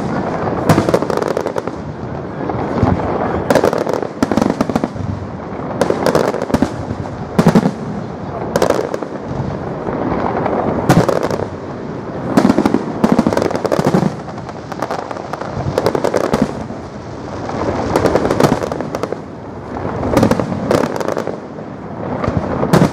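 Large fireworks display: aerial shells bursting in a continuous, rapid series of loud bangs, one after another, over a steady rumbling wash.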